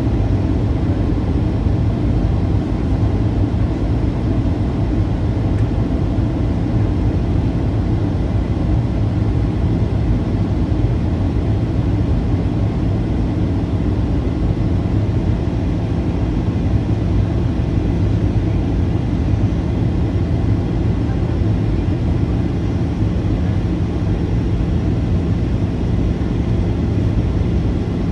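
Steady in-flight cabin noise of a Boeing 737-800 heard from a front-row seat: a constant low rush of airflow and engine drone with a faint steady hum, unchanging throughout.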